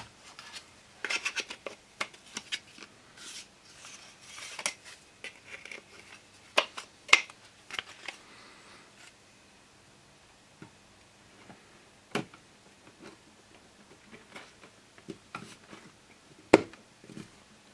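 Thin laser-cut MDF parts being handled and dry-fitted together on a cutting mat: scattered light clicks, taps and scrapes, busier in the first half, with a sharper knock near the end.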